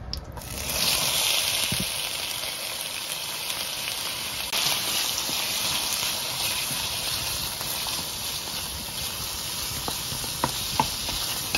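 Chopped onion and green pepper sizzling steadily in hot oil in a stainless steel wok, starting suddenly about half a second in as they are tipped in. A few light knocks of the wooden spatula against the wok near the end.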